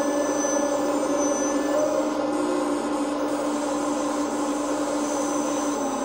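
Magom 330D RC hydraulic excavator running: the diesel engine sound from its Servonaut SMB sound module plays steadily along with its hydraulic pump while the boom and bucket move.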